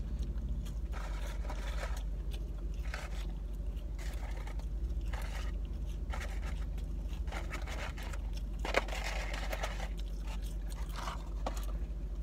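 Someone eating French fries: irregular chewing and crunching with scrapes and rustles of a paper fry carton, over a low steady hum.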